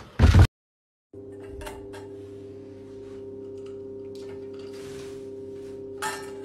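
A parrot knocking at its empty stainless steel food bowl, giving a short loud knock at the start and then scattered light taps, over a steady hum of several held tones.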